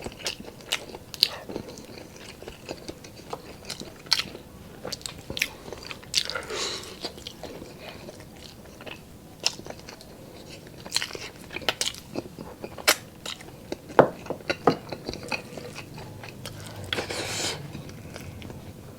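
Close-miked chewing of a person eating pork adobo with rice: irregular sharp, wet mouth clicks and smacks, with two longer breathy sounds, about six and seventeen seconds in.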